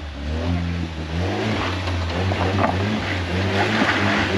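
Ford Bronco engine working on an off-road trail, its pitch shifting up and down as the throttle changes, with a few short knocks.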